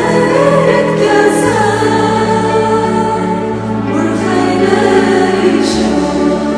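Choral music: a choir singing slow, sustained chords over held bass notes that change every two seconds or so.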